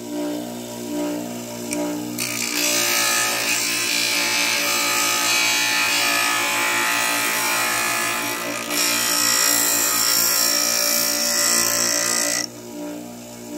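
Bench grinder motor running with a steady hum. From about two seconds in, a wooden strip is held against the spinning grinding wheel, giving a loud, even grinding hiss that stops about a second before the end while the motor keeps running.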